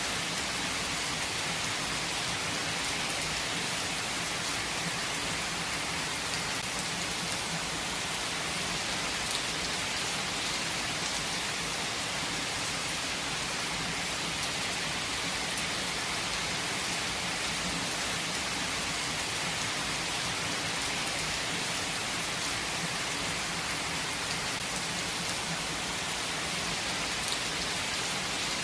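Steady rainfall, a continuous even hiss of drops with no let-up.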